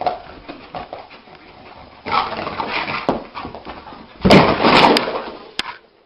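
A dog vocalising in bursts, with the loudest burst a little past four seconds in.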